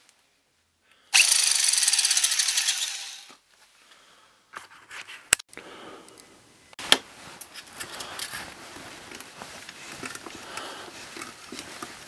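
A power tool runs for about two seconds, then sharp clicks and a low, uneven rattling of handled hardware follow.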